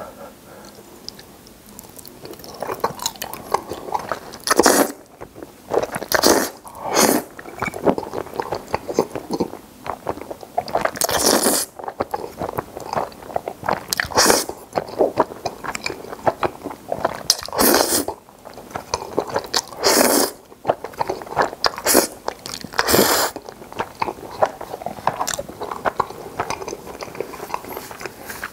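Close-miked eating of spaghetti carbonara: long noodles slurped up in loud bursts about eight times, with wet chewing between the slurps.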